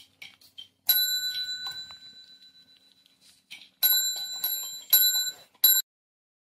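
Chrome desk service bell rung four times by a cat pressing its plunger with a paw, each ding ringing on and fading; the last is cut short.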